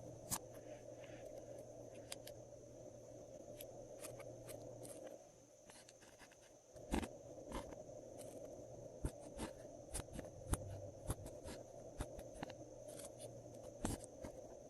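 Glossy slime being kneaded and squished by hand, giving irregular sticky clicks and pops over a steady background hum.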